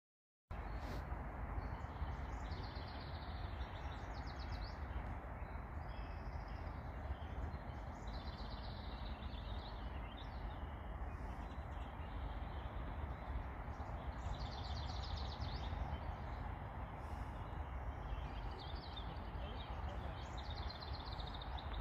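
Birds calling and singing in short, repeated trilling phrases over a steady low rushing noise, beginning after a brief moment of silence.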